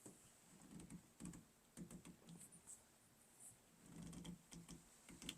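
Faint, irregular small clicks and soft knocks of hands handling a new metal shower arm as it is fitted back into the wall.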